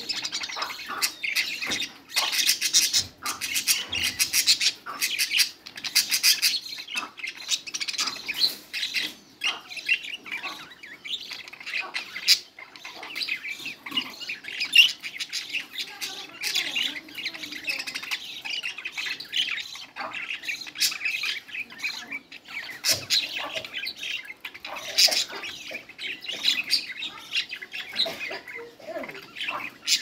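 Budgerigars chattering and warbling without pause, full of quick sharp chirps and squawks.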